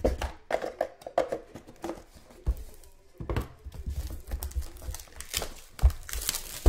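Plastic wrapping crinkling and tearing as a sealed trading-card box is handled and opened, with irregular clicks, rustles and dull bumps of the box against the table. A louder burst of crackling comes near the end.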